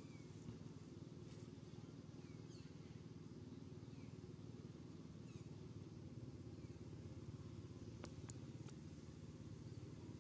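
Quiet outdoor ambience: a steady low hum under faint, short downward-sliding bird chirps repeating every second or so. Three sharp clicks come close together about eight seconds in.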